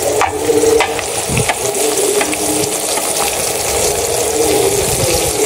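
Breaded zinger-style chicken pieces frying in hot oil in a karahi as more pieces are lowered in by hand: a steady sizzling hiss with scattered sharp pops, over a steady low hum.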